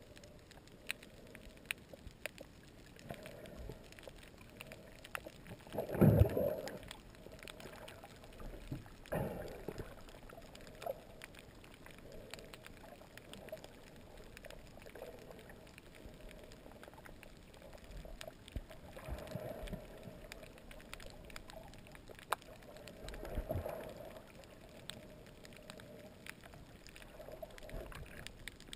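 Muffled underwater sound picked up by a submerged action camera: water noise with many faint scattered clicks and a few louder low surges of water movement, the loudest about six seconds in.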